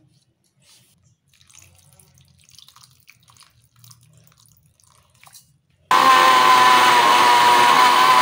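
Ice water poured faintly into a kitchen mixer-grinder jar of ash gourd pieces. About six seconds in, the mixer grinder's motor switches on suddenly and runs loud and steady with a high whine, blending the gourd and water into juice.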